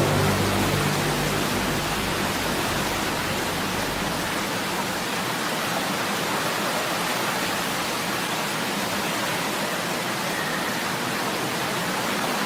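Steady, even hiss with no pitch to it, like rushing air or rain noise on an outdoor recording. A low hum fades out over the first few seconds.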